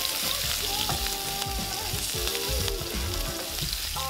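Chopped onion sizzling steadily in olive oil in a frying pan as it sweats, stirred with a wooden spoon.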